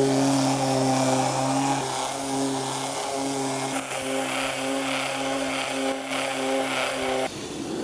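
Electric random orbital sander with 120-grit paper running steadily, a motor hum over a sanding hiss, as it levels the glued edges of a wooden box. It switches off near the end.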